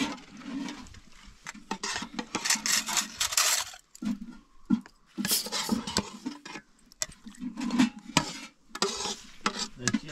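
Metal utensils clinking and scraping against pots and dishes, in irregular knocks and short rubbing strokes.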